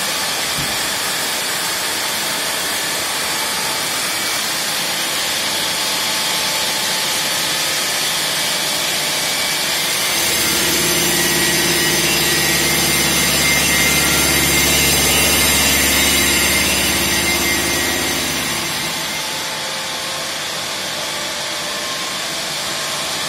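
Stone-working machine grinding the edge of a large granite ring under a water spray: a steady grinding hiss with motor noise. About ten seconds in a deeper motor hum with a high whine joins for some eight seconds, then drops away.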